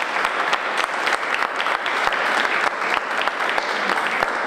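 Audience applauding: a roomful of people clapping hands steadily.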